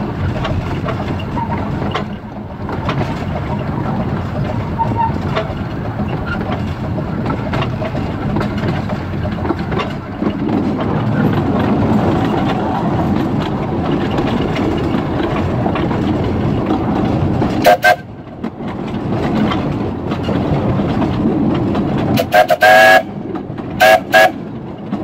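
Kerr Stuart Wren class narrow-gauge steam locomotive running, heard from its footplate as a steady rumble. Its steam whistle sounds very loud: one short blast about two-thirds of the way in, then a longer blast and a short one near the end.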